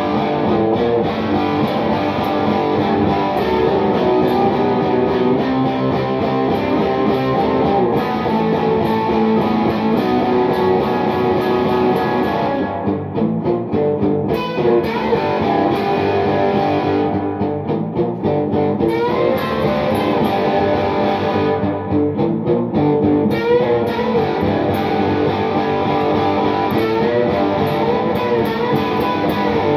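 Solid-body electric guitar played through an amplifier, a continuous run of picked notes and chords with a slightly overdriven tone.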